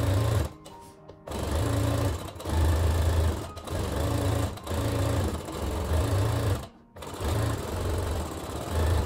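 Brother Innovis 15P sewing machine stitching a seam in linen, running in spurts of about a second with short stops, including a pause of nearly a second near the start and another about seven seconds in.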